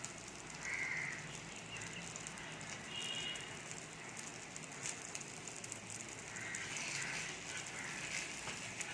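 Egg omelette mixture frying in oil on a tawa: a steady sizzle dotted with small crackles and pops.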